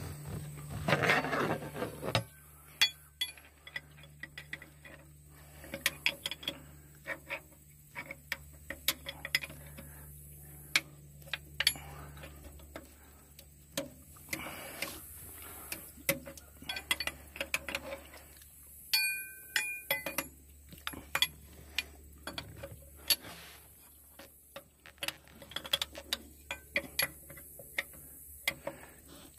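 Hand tools and metal fittings clicking and clinking in short, irregular taps while a new fuel primer pump is fitted on an excavator, over a low steady hum.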